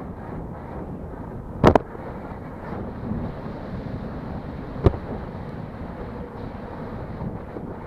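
Air rushing over the microphone of an FPV aircraft's onboard camera in flight, a steady noisy buffeting. A sharp double click comes about a second and a half in, and another single click near five seconds.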